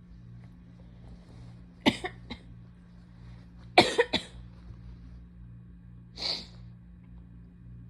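A person with a cold sneezing in two fits, about two seconds apart. Each fit is one sharp burst followed by one or two smaller ones. About six seconds in there is a short breathy intake or sniff.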